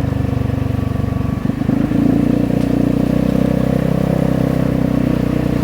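Vespa GTS 250 single-cylinder four-stroke engine and loud aftermarket exhaust running steadily while riding along. The engine note dips briefly about a second and a half in, then carries on at an even pitch.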